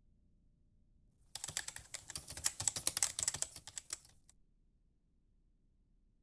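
Rapid typing on a keyboard: a quick, uneven run of key clicks that starts about a second in, lasts about three seconds, and stops suddenly.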